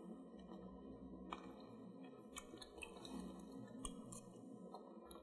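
Faint sounds of eating ice cream: a metal spoon scraping and tapping against a glass dessert dish a few times, and soft mouth sounds as a spoonful is tasted, over a quiet, steady room hum.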